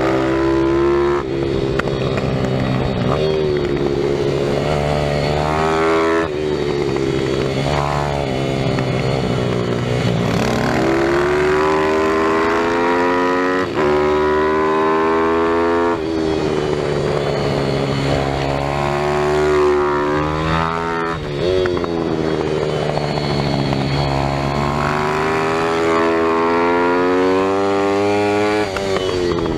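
Pit bike's single-cylinder engine heard onboard while lapping a track: it revs up repeatedly, climbing in pitch through the gears, then drops back off the throttle, over and over.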